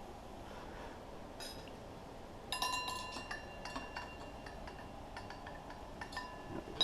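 Metal parts and tools clinking. A ringing metallic clink comes about two and a half seconds in, followed by lighter clicks and clinks and a short sharp clink at the end.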